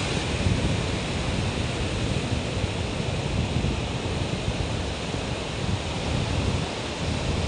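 Ocean surf washing onto a beach, a steady rushing noise, with wind noise on the microphone.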